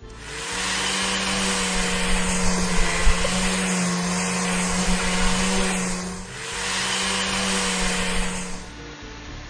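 Cartoon sound effect of a motorised car-wash scrubbing brush whirring, a steady hiss with a constant hum. It breaks off briefly about six seconds in, restarts, and fades out near the end.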